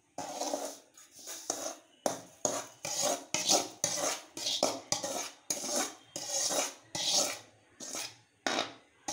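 A metal spoon scraping roasted semolina (rava) out of a metal kadai into a glass bowl: quick repeated scrapes against the pan, about two a second.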